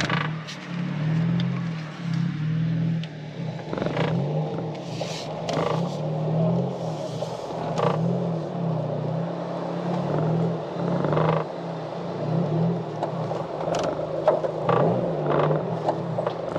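A car running steadily with a low, wavering engine hum, with a few short clicks and knocks scattered through it.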